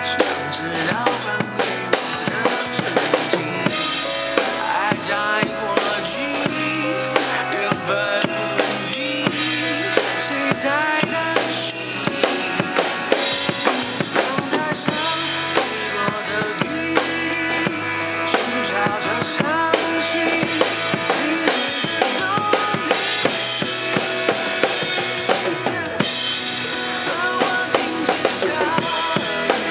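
Pop-ballad music with a steady drum-kit beat under melodic instrumental lines, in a passage without singing.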